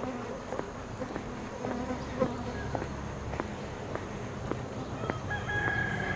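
Footsteps on a paved sidewalk, about two steps a second, over a steady high drone of summer insects. About five seconds in, a pitched animal call with several tones rises above it.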